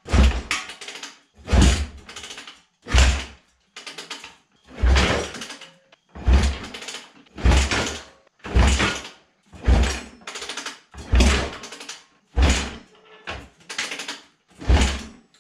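2001 Yamaha YZ426F four-stroke single being kick-started: about a dozen hard kicks, roughly one every second and a quarter, each a heavy thud as the engine turns over. It does not catch.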